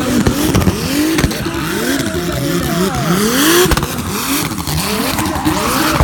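Ford Sierra drift car with a BMW 3-litre turbocharged engine, revved hard and let fall over and over, about twice a second, as it is held in a slide, with tyres squealing against the asphalt.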